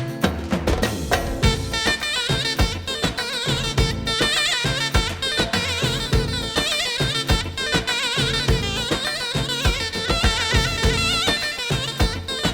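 Turkish folk-style music played on a Yamaha A5000 sampler with sampled zurna and bağlama sounds. A reedy, ornamented, wavering zurna melody runs over a steady 2/4 drum beat.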